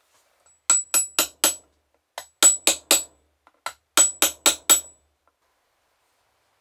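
A small hammer tapping a thin metal punch held against a wooden book board, in three quick runs of four or five light taps, about four a second. Each tap carries a faint high metallic ring.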